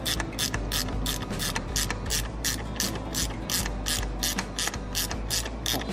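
Ratcheting 13 mm wrench clicking in quick, even strokes, about five clicks a second, as it turns a bolt holding the clutch hydraulics to the transmission bell housing.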